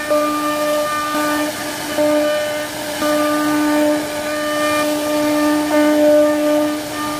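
CNC router spindle running with a steady whine as the machine carves wood; the pitch holds while its upper overtones fade in and out.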